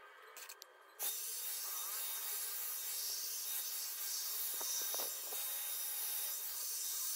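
Agaro volumizer hot-air brush switched on about a second in, then blowing with a steady airy hiss and a faint high whine.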